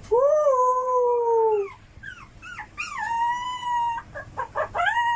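A dog howling: one long, slightly falling howl, a few short yelps, then two higher drawn-out howls.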